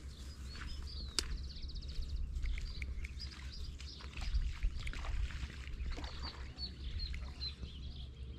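Birds chirping in short high calls, with a quick rattling trill about two seconds in, over a steady low rumble.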